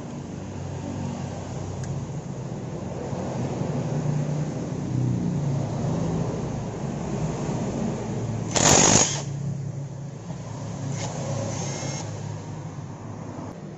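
Engine noise from vehicles running in the background, rising and falling a little in pitch, with one loud hiss lasting about half a second about two-thirds of the way through.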